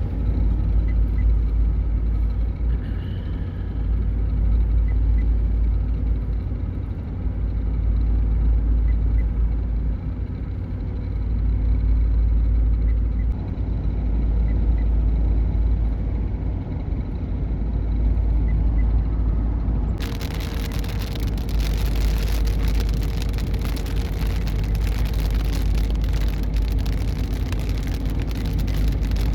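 Car driving, heard from inside: a steady low rumble of engine and road noise. About two-thirds of the way through, a loud steady hiss suddenly joins it.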